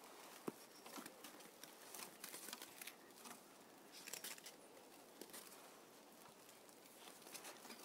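Near silence, with faint scattered ticks and light rustling.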